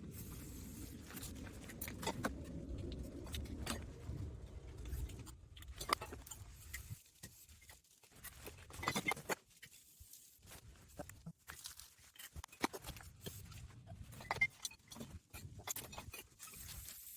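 Beach-litter bottles and cans being rinsed by hand: a low rush of water for the first five seconds or so, then scattered clinks and knocks as the containers are handled.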